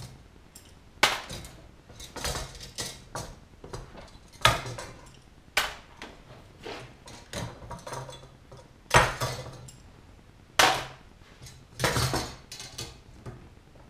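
Clecos being pulled out of an aluminium wing rib with cleco pliers: a string of irregular sharp metallic clicks and clinks as each temporary fastener is released and handled.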